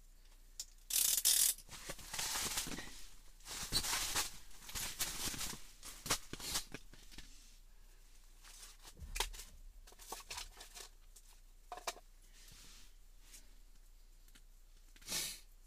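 Bursts of rustling and scraping with scattered small clicks as fishing tackle and clothing are handled, busiest in the first half, with one more short rustle near the end.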